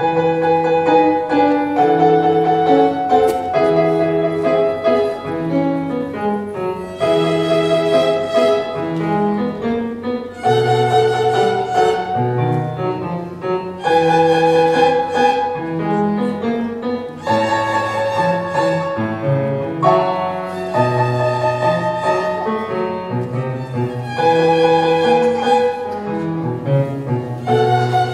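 A group of young violinists playing a tune together with piano accompaniment, the music striking up all at once.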